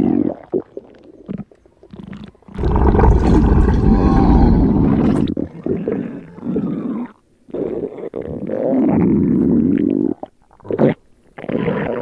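Stomach growling sound effect: a string of loud, low rumbles and gurgles with short silent gaps between them, the longest and loudest starting about two and a half seconds in and lasting some three seconds.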